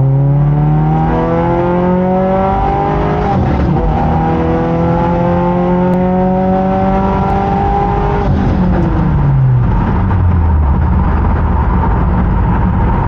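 A 2022 Subaru WRX's turbocharged 2.4-litre flat-four, heard from inside the cabin on a drag-strip pass. It climbs in pitch, drops at an upshift about three seconds in, then climbs slowly again before falling away as the throttle lifts around eight seconds in, leaving a low coasting rumble. The run is on a wet strip where the driver says the tyres just spun in first and second gear.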